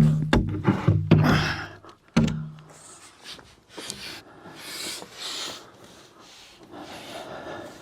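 Two sharp knocks about two seconds apart, each with a brief low ring, followed by soft breathy rustling.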